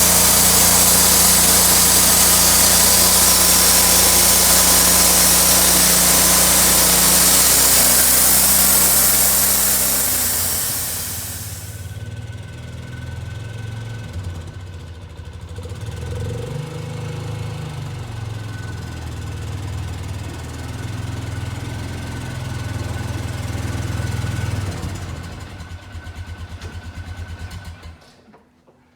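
Sawmill engine running while the saw blade cuts through a pecan log, loud with a harsh hiss for about the first eleven seconds. The cut then ends and the engine runs on at a lower level before being shut off, pulsing as it winds down and stopping shortly before the end.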